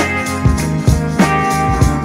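Background music with a steady beat, about three strokes a second, under held melodic notes.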